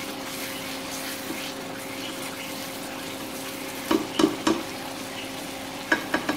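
Tomato-onion masala sizzling gently in a nonstick pan while a black plastic spatula mashes and scrapes it. Three quick spatula knocks on the pan come about four seconds in, and three more near the end, over a steady faint hum.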